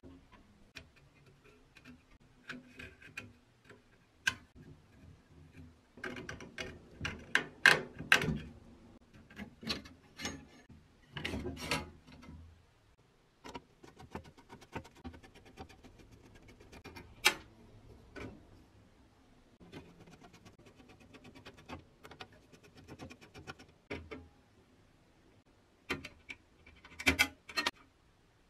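Small clicks, scrapes and metallic clinks of a screwdriver working the screws of a pressed-steel 1930 Meccano toy seaplane as it is taken apart. The clicks come in irregular runs, busiest in the middle and again near the end, when loosened steel parts are lifted off.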